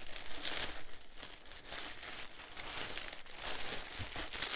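Clear plastic bag and plastic wrappers crinkling as hands rummage through them and pull packets out, irregular and growing louder near the end.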